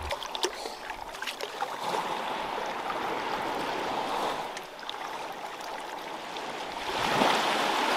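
Shallow surf water sloshing and splashing around a bull shark held by its dorsal fin in the shallows for release. A few small splashes come in the first second, and a louder rush of water starts about seven seconds in.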